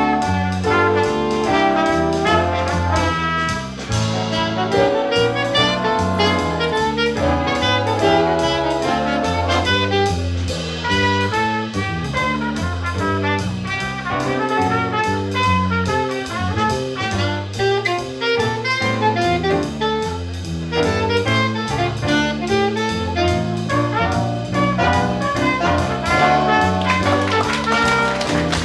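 Jazz big band playing a swing arrangement: trumpet, trombone and saxophone sections over bass and drums.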